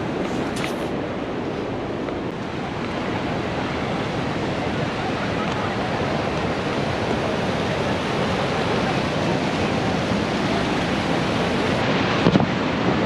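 Steady roar of Niagara Falls' falling water, even and unbroken, with a single firework bang near the end.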